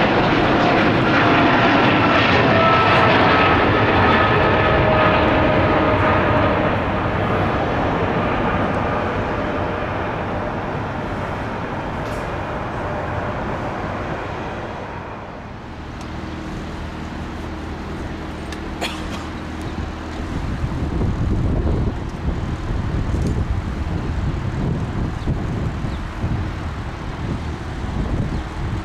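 Boeing 777-200LR's GE90 jet engines at take-off thrust, a loud roar with falling whine tones as the aircraft climbs away, fading over about fifteen seconds. After a cut, a second jet, a Boeing 787-8 on approach to land, comes in as a lower, steady rumble that slowly grows louder.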